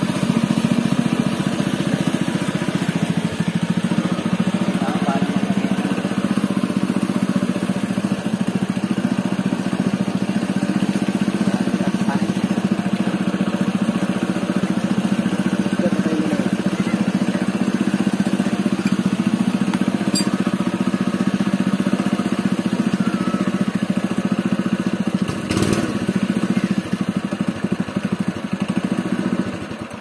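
Small gasoline engine of a portable water pump running steadily at a constant speed. It stops near the end.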